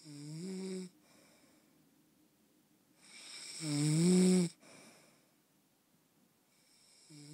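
Snoring: three drawn-out pitched snores about three seconds apart, each rising slightly in pitch, the middle one the loudest.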